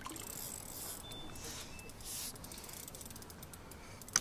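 Fishing reel clicking rapidly, a fine ratchet-like ticking, as a hooked carp is played on the rod, with one sharper click near the end.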